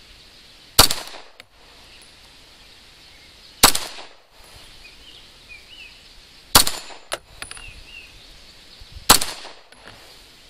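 Beretta pistol firing remanufactured range ammunition: four single shots, evenly spaced about two and a half to three seconds apart, each a sharp crack with a short tail.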